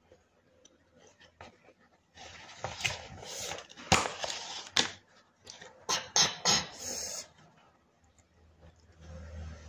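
Handling noise from a paper instant-noodle cup and its paper lid: rustling and crinkling with a run of sharp clicks and knocks, starting about two seconds in and dying down after about seven seconds.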